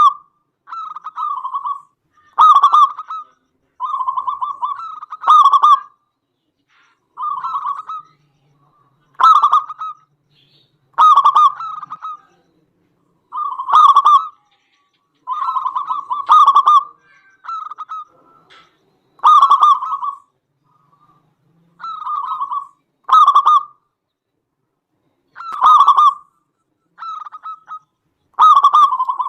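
Zebra dove (perkutut) singing its cooing song: short phrases of quick, bubbling coos, repeated about every one to two seconds with brief gaps between them.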